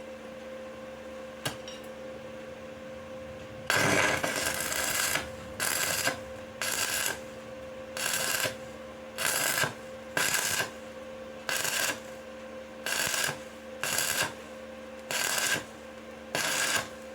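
Stick (MMA) electrode welding arc on a steel pipe, struck and broken again and again: a sputtering crackle that starts about four seconds in with a longer burst, then about ten short bursts of roughly a second each with brief gaps between. The on-off rhythm is the tack-by-tack ('dot to dot') way of laying the weld so as not to burn through the pipe.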